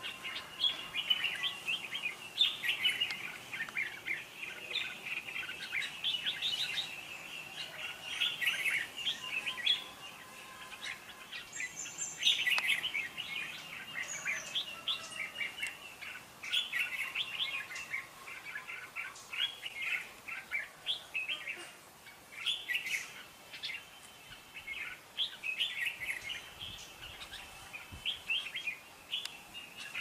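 Red-whiskered bulbuls singing in quick, bright runs of chirping phrases, with a couple of short lulls. The song is a territorial song duel between a caged decoy bulbul and a wild one.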